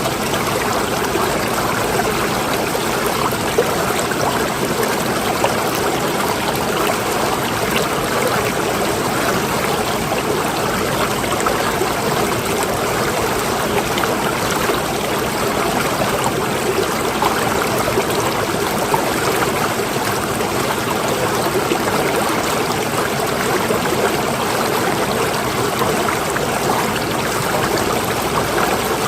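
Water running steadily, an unbroken flowing and trickling sound that neither rises nor falls.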